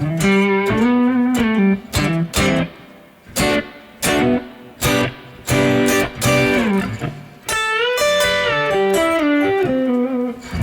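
Telecaster electric guitar played through a Strymon Big Sky MX reverb pedal: picked notes and chords with string bends about a second in and again near the end, each note decaying into reverb.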